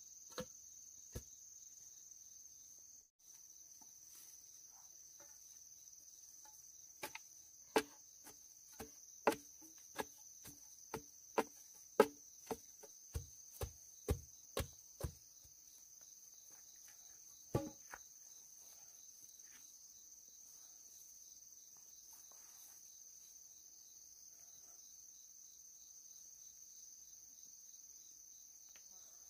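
Steady high-pitched chorus of crickets, with a run of sharp knocks, about two a second, through the middle, and one more knock a couple of seconds later.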